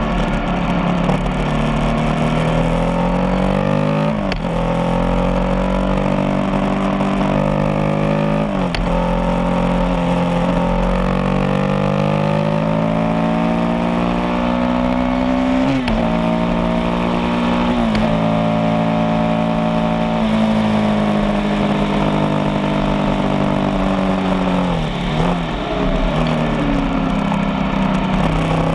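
Motorcycle engine running under way, its pitch climbing as it accelerates and dropping sharply at several gear changes, with a low rumble of road and wind underneath.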